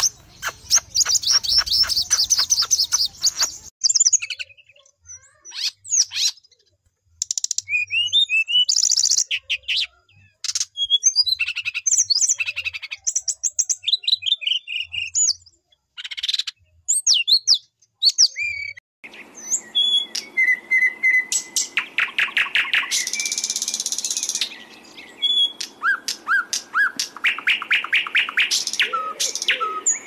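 Compilation of sharp, harsh songbird calls spliced together: a fast trill, then assorted quick chirps and whistles with short pauses, and from about two-thirds of the way in a different recording with background hiss and dense, rapidly repeated notes.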